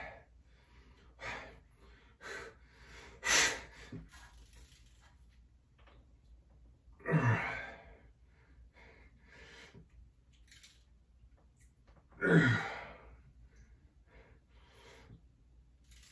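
A man breathing hard with effort, with three forceful exhalations about four to five seconds apart. The last two fall in pitch like a voiced sigh or grunt.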